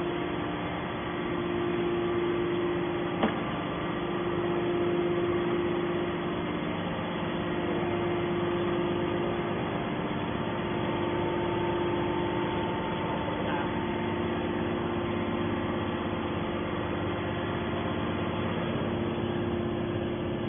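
Steady hum of a hydraulic scrap-metal baler's power unit, its electric motor and pump running at a constant pitch, with one sharp click about three seconds in.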